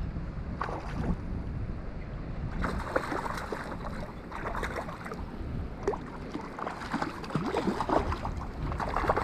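Water splashing and sloshing in irregular bursts as a hooked trout is brought in to the net, over a low rumble of wind on the microphone.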